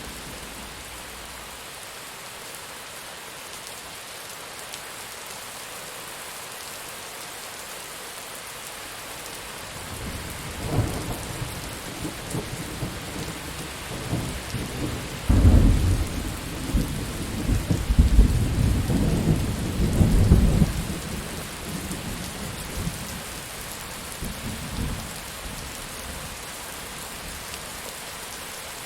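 Steady heavy rain, with a rolling thunderclap that builds about a third of the way in, peaks in several deep cracks and rumbles over about six seconds, then dies away while the rain carries on.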